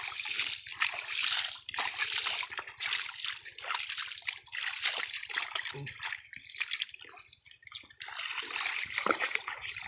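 Shallow muddy water splashing and sloshing in irregular bursts as hands grope in a flooded hole for catfish.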